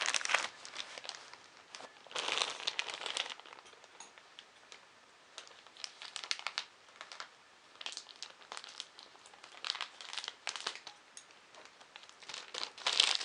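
Plastic packaging crinkling and rustling in irregular bouts as the second Z-axis shaft part is unwrapped by hand.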